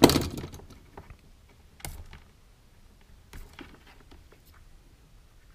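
Tool and wire handling on a wooden workbench. A sharp clatter right at the start as a utility knife is set down is the loudest sound, followed by a single sharp tap about two seconds in. Then come faint small clicks and rustles as the cable's cut insulation is worked by hand.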